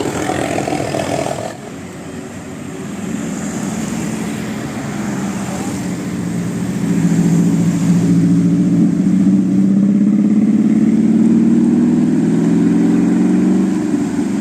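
Bus engine running, then growing louder and slowly rising in pitch as it revs or pulls away from about five seconds in, after an abrupt change in sound about a second and a half in.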